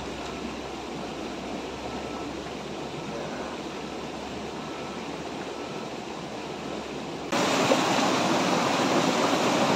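Steady rush of a rocky mountain stream. About seven seconds in, it abruptly becomes much louder and brighter as a small waterfall splashing over rocks takes over close by.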